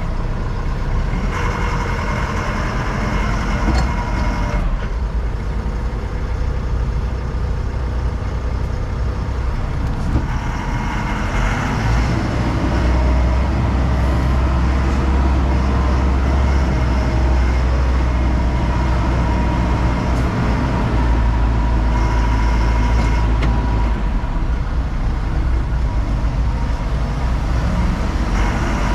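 Backhoe's diesel engine running steadily as it is driven, with a deep rumble that grows heavier about twelve seconds in.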